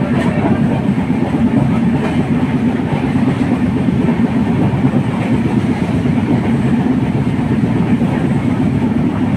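A moving train, heard from aboard: a steady, even rumble of the carriage running on the track.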